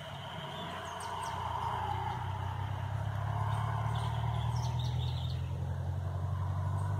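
Howler monkeys (guaribas) calling in chorus at a distance, a steady droning roar. A low rumble swells from about two seconds in, and a few short bird chirps sound over it.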